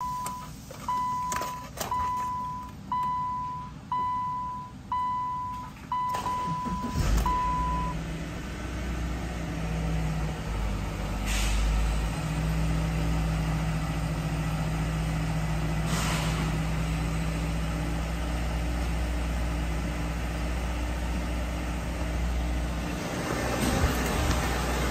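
A 2012 Subaru Legacy's dashboard warning chime beeps about once a second, eight times. About seven seconds in, the car's 2.5-litre flat-four engine cranks, starts and settles into a steady idle.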